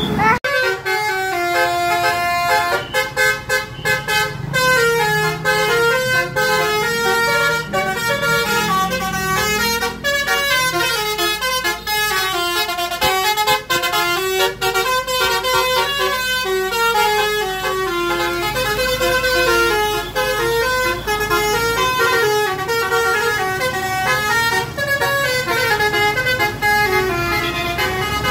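A bus's multi-tone 'telolet' musical horn playing a long melody of quick, stepping notes, about three a second, over a low engine rumble.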